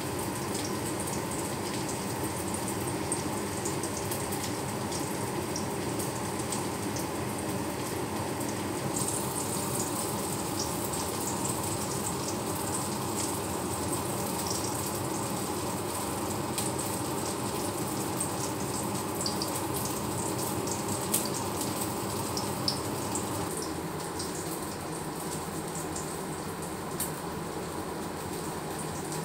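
Pork patties frying in oil: a steady sizzle with scattered small pops and crackles.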